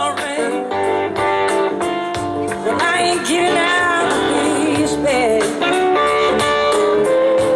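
Live blues-rock band playing, with electric guitars, bass and drums, and a woman singing over them.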